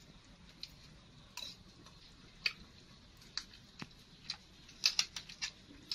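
Light, irregular clicks and taps of someone eating steamed fish with a metal spoon from a ceramic sauce bowl and plate, about a dozen in all, several close together about five seconds in.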